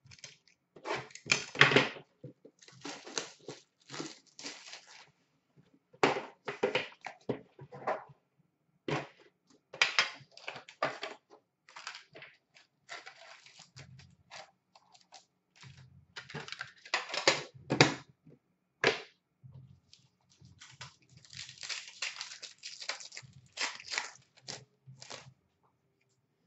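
Hockey trading-card pack wrappers crinkling and tearing open, with cards being handled and slid against each other. The sound is a run of short, irregular rustles and rips, some loud, with brief pauses between them.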